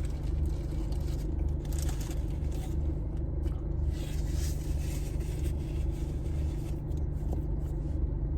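A person chewing and crunching food in irregular bites, over a steady low hum.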